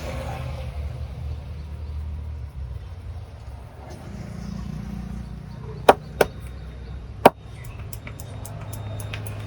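Three sharp cracks from the barber's hands during a head and back massage, the first two close together and the third about a second later, followed by a run of faint quick ticks. A low traffic rumble runs underneath.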